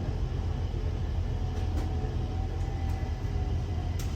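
Stockholm metro train's steady low rumble, with a faint whining tone in the middle and a few light clicks, the sharpest near the end.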